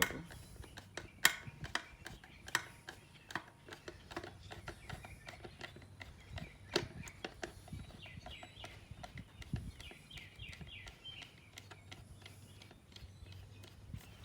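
Irregular sharp clicks and knocks as a flathead screwdriver works the plastic air filter housing cover loose on a pressure washer's small engine. After about eight seconds, a run of quick high chirps is heard.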